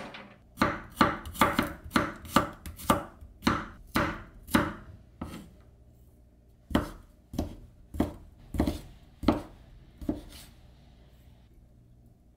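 Kitchen knife chopping on a cutting board: a quick run of about a dozen strokes, a pause of about a second and a half, then six slower, evenly spaced strokes.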